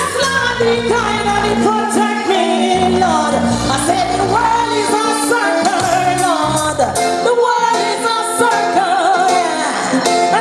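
A woman singing live over a reggae backing track played by a selecta, with a steady bass line under the voice.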